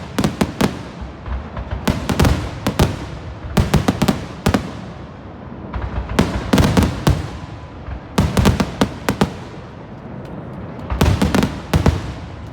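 Fireworks bursting in quick clusters of sharp bangs, a cluster every two seconds or so, each trailing off in echo.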